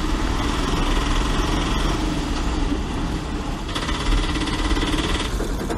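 Auto-rickshaw engine running steadily as it drives, heard from inside the open passenger cabin.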